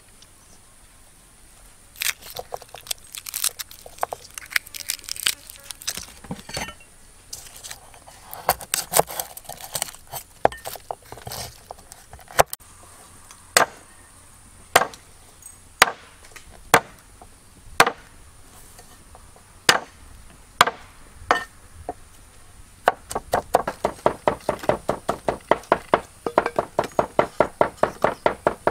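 Knife chopping on a wooden cutting board: scattered single chops at first, then about five quick, even chops a second near the end.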